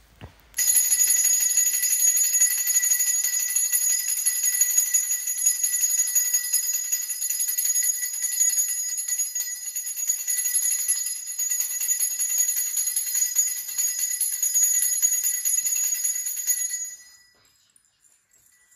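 Brass pooja hand bell rung continuously during an aarti lamp offering: a steady, high, jangling ring that stops near the end.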